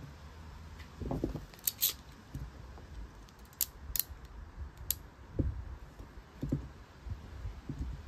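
Ratchet crimping tool being handled: a handful of sharp metallic clicks and a few soft knocks as it is picked up and fitted over an Anderson connector crimp pin.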